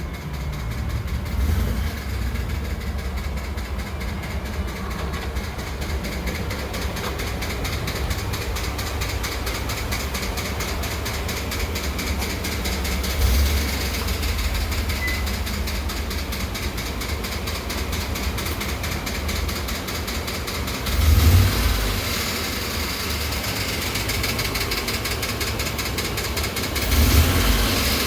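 Ford F-150 5.0 L V8 engine running with a rapid, regular knocking. It swells louder briefly a few times, most strongly about three quarters of the way in and near the end.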